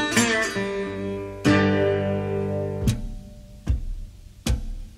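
Background music on acoustic guitar: picked notes, then a strummed chord about a second and a half in that rings for over a second and stops, followed by a few sharp single strikes.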